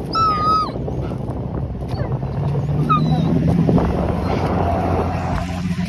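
A dog whining: a loud high-pitched whine in the first half second, then a short rising whimper about 3 s in, over a rumbling vehicle engine whose steady hum grows stronger toward the end.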